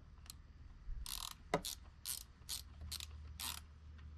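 Ratchet wrench clicking in short strokes, about two a second, snugging down the bolts of dirt-bike handlebar riser mounts. The bolts are only being snugged, not fully tightened.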